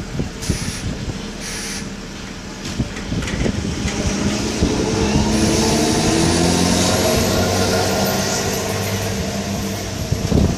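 Fire engine's diesel engine pulling away up the street, revving up and growing louder for a few seconds before easing off as it draws away. Two short hisses come near the start.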